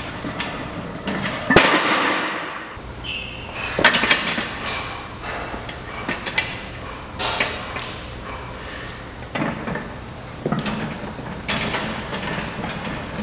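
Strongman yoke loaded with bumper plates dropped to the floor with a loud clanging thud about one and a half seconds in. After that, scattered knocks and clanks from the yoke's frame and plates as it is picked up and carried.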